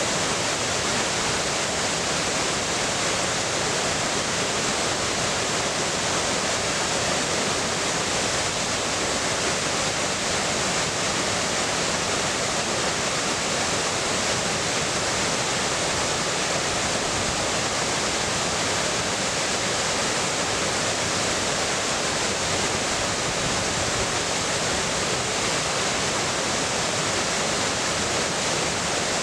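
A waterfall: falling water rushing steadily, an even hiss that does not change or break.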